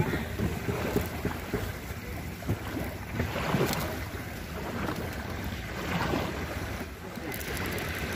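Wind buffeting the microphone over river water lapping against the fishing boats, with a few light knocks.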